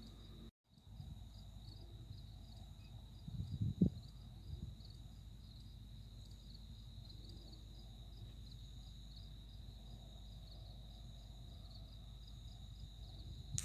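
Crickets chirping in a steady, continuous high trill, with a short low thump about four seconds in. The sound drops out for a moment about half a second in.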